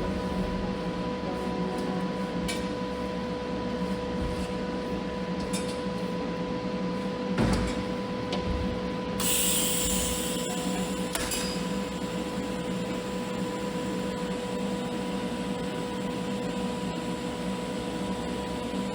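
TIG welding arc running steadily: an even buzzing hiss with a constant electrical hum. A brief louder, higher hiss comes about nine seconds in.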